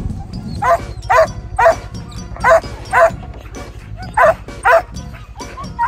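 Siberian huskies yelping in short, high, pitched barks, mostly in pairs about half a second apart.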